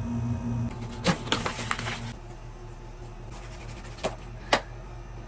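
Ballpoint pen scratching across sketchbook paper in short quick strokes, over a low steady hum for the first two seconds, with a few sharp taps near the end.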